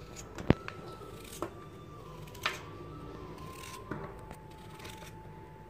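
Kitchen knife slicing a raw potato held in the hand into thin rounds, with a few sharp clicks as the blade cuts through, the loudest about half a second in.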